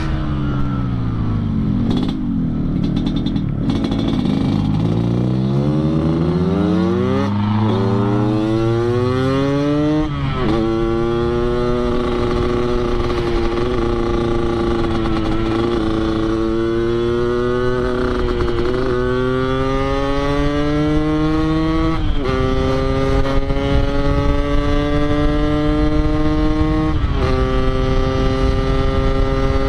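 Yamaha RX-King's 135 cc two-stroke single with an underslung expansion-chamber exhaust, tuned for a deep 'ngorok' growl. It runs down in pitch for a moment, then accelerates. It shifts up four times, each shift a sudden drop in pitch followed by a steady climb as the bike pulls through the gear.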